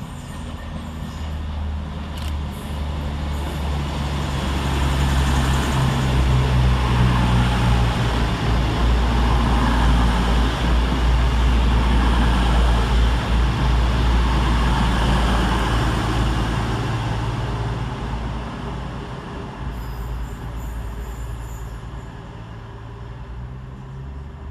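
CrossCountry Class 221 Super Voyager diesel multiple unit passing through the station without stopping. Its underfloor diesel engines hum low and steady under the wheel-and-rail noise. The sound builds to a peak around the middle and fades away near the end.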